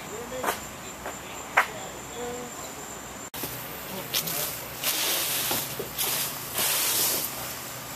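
Outdoor ambience: a steady high insect drone with a couple of sharp clicks. After a brief cut about three seconds in, a run of loud rushing noise bursts follows, each lasting about half a second to a second.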